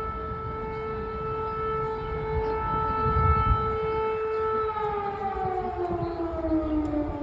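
Air raid siren sounding a steady wail, its pitch starting to fall slowly about five seconds in as it winds down, over a low rumble that swells around three seconds in.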